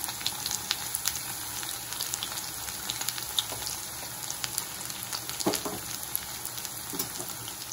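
Sliced shallots frying in hot oil just after going into the pan: a steady sizzling hiss with many small pops and crackles scattered through it.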